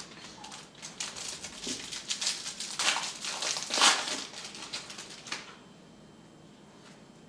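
Plastic crinkling and rustling as sports trading cards and their wrapping are handled, with louder crackles about three and four seconds in, dying away after about five seconds.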